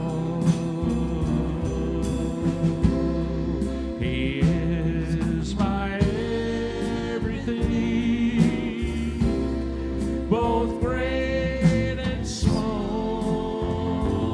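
Live worship band playing: singing over acoustic guitar, keyboard and a drum kit with cymbal hits.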